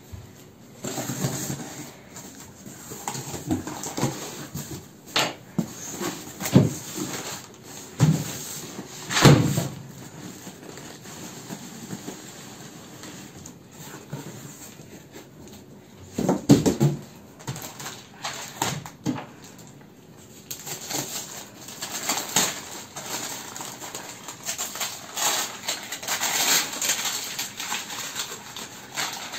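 A cardboard carton being cut open and unpacked: cardboard scraping and flaps rustling, plastic-wrapped bundles of matchboxes rustling as they are lifted out and knocking onto a wooden table as they are stacked, with the heaviest thumps about nine and sixteen seconds in.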